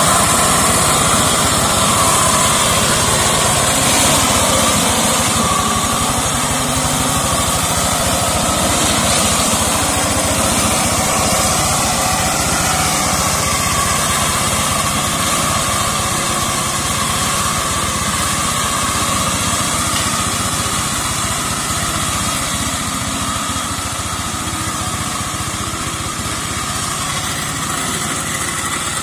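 Two-wheel hand tractor's single-cylinder diesel engine running steadily as it drives a mower attachment through undergrowth, getting a little quieter toward the end as it moves off.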